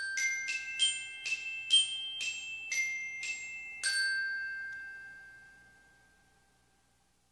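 Logo intro jingle of bright, bell-like mallet notes: about ten quick strikes, the last ringing out and fading away over about three seconds.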